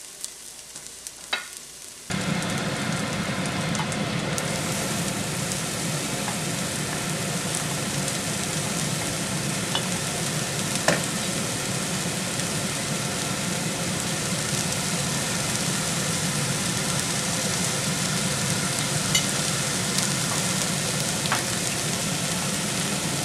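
Onions frying in hot oil in a nonstick pan on high heat: a steady sizzle that comes in suddenly about two seconds in, with a few light clicks of the wooden spoon.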